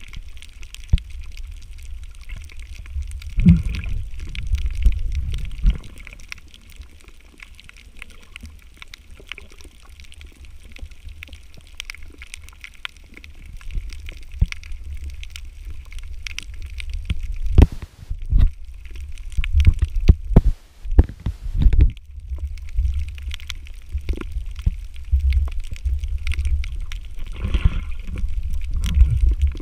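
Muffled underwater water noise: a low rumble of moving water with gurgling that swells and fades, scattered with knocks and clicks, a cluster of sharp ones about two-thirds of the way through.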